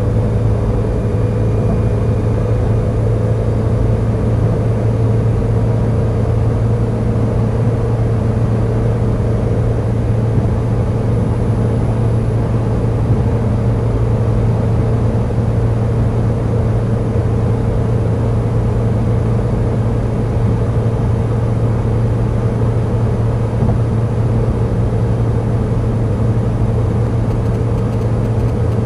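Car cruising at a steady speed, heard from inside the cabin: a steady low drone of engine and tyre noise.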